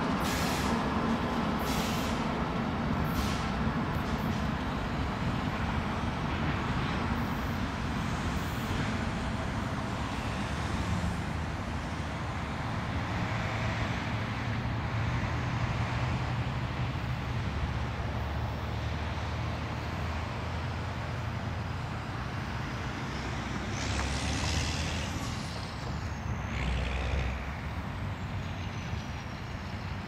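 A freight train of empty coal hoppers rolling past, with the low hum of its GE ES44AC diesel locomotive running steadily. There are a few sharp clicks in the first four seconds, and a brief high hiss with a falling squeal about 24 seconds in.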